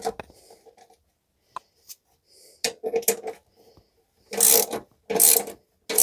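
Ratchet wrench tightening a bolt: several short bursts of ratcheting clicks with pauses between, mostly in the second half.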